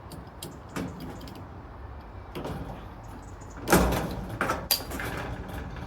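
Metal knocks and scraping from thin steel raised-bed panels being handled, with a loudest clank just under four seconds in and a few smaller ones around it.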